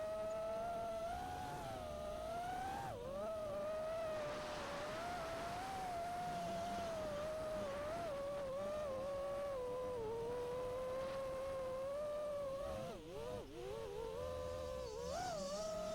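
A 5-inch FPV quadcopter's brushless motors and three-blade props whining steadily, the pitch wavering with the throttle. About thirteen seconds in the pitch dips and wobbles sharply as the throttle is chopped and punched again.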